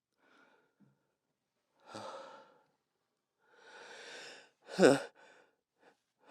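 A person's heavy breathing between sneezes: sighing breaths about two and four seconds in, then a short, much louder breath a little before five seconds.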